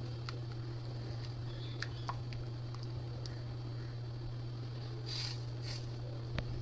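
Silicone spatula stirring semolina into boiling water in a wok: faint squishing and scattered light clicks against the pan over a steady low hum, with a couple of soft scrapes about five seconds in.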